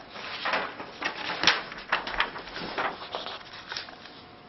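A sheet of paper being handled and rustled, with a run of irregular crinkles and taps that die away near the end.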